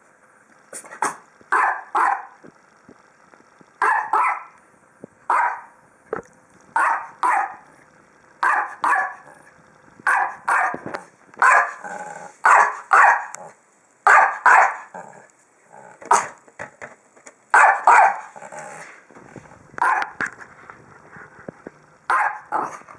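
A dog barking over and over, in short runs of one to four barks with brief pauses between them.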